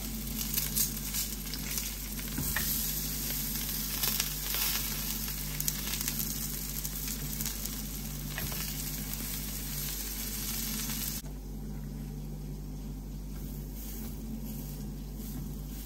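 Vegetable patties sizzling in oil on a flat nonstick pan, with a few short scrapes and taps as a spatula turns them over. About 11 seconds in the sizzle drops suddenly to a quieter hiss.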